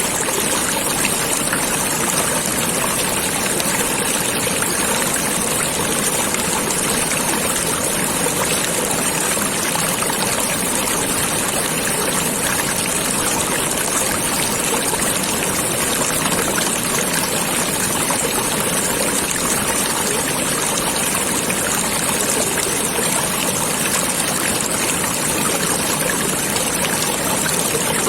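Stream water running steadily, an even, unbroken rush.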